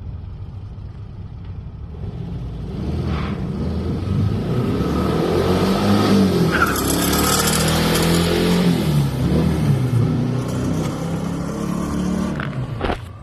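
Sand rail dune buggy engine running and revving as it drives, its pitch rising and falling and growing louder toward the middle before it cuts off abruptly near the end.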